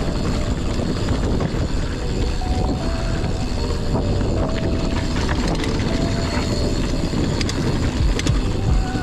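Mountain bike riding a dirt forest trail: a steady rumble of tyres over the ground and wind on the mic, with short high whines that come and go and a few sharp clicks.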